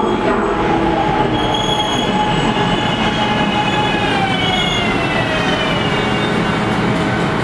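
An Adtranz M-4 subway-elevated train arriving on the adjacent track, its wheels and running gear rumbling. A high whine of several tones sets in about a second in and falls slowly in pitch as the train brakes to a stop.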